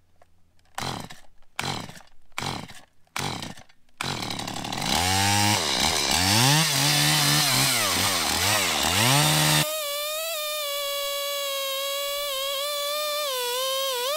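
Stihl MS180 two-stroke chainsaw being pull-started: four short pulls, then it catches about four seconds in and revs up and down unevenly. About ten seconds in the sound changes suddenly to a steadier, higher wavering drone as the saw works. The owner says the saw bogs down and is running badly even after cleaning the plug, air filter and spark arrestor and fitting fresh fuel.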